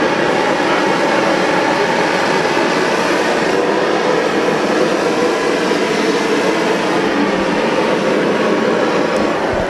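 Gas burner blowing a steady flame onto the hot bulb of a Tuxham two-stroke hot-bulb semi-diesel, preheating the bulb before the engine can be started. The rushing noise is even, with no firing beat.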